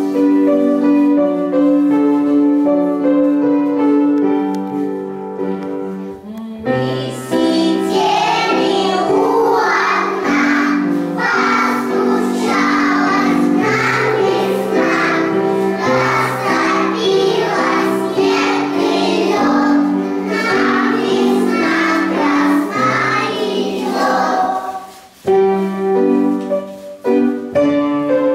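Children's song: a few seconds of instrumental introduction, then a group of children singing over the accompaniment. The music breaks off briefly near the end, then the accompaniment resumes on its own.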